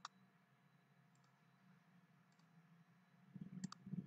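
Computer mouse button clicks, faint: one sharp click at the start, soft clicks in the middle and a quick double click near the end, over a steady low hum. A low rumble rises near the end.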